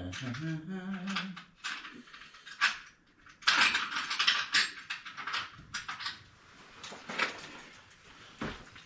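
Irregular clinking and rattling of small metal tools being handled, as when rummaging for a drill bit, loudest about three and a half to five seconds in. A short low hum near the start.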